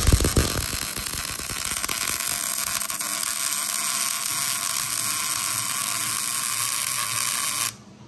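Wire-feed welder arc crackling and hissing steadily as a bead is laid on the steel truck frame, with a few low thumps as it starts. It cuts off suddenly near the end when the weld is finished.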